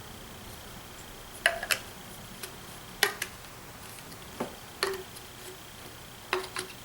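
Plastic clicks and knocks of 1/2-inch PVC pipe pieces being pushed into PVC elbows, a tee and an end cap during a dry fit, about seven sharp taps, some with a short hollow ring.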